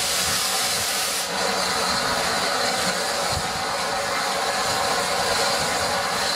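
Rebuilt Bulleid West Country class Pacific 34046 Braunton standing with steam hissing from it, a steady, even hiss. About a second in the hiss loses its sharpest, highest part and carries on a little duller.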